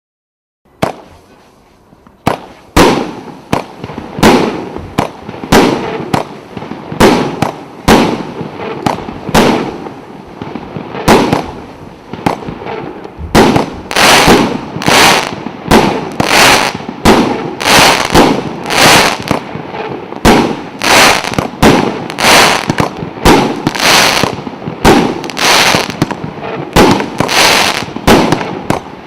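A 49-shot 1.2-inch firework cake battery firing: after a single pop about a second in, a steady string of shots follows, roughly two a second, getting crisper from about halfway.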